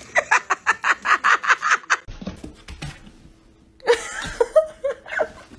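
A person laughing in quick rapid bursts, about six a second, that break off suddenly about two seconds in. Laughter and voice return for the last second and a half.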